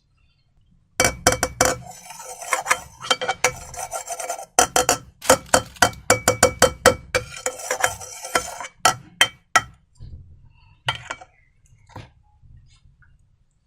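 Slime being squished and worked by hand: a fast run of wet clicks and snaps with some sticky rubbing, starting about a second in and thinning to a few scattered clicks after about ten seconds.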